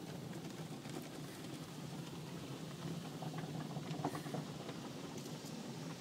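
Automatic car wash heard from inside the car: water spray and wash cloths sweeping over the windshield and body make a steady rushing patter.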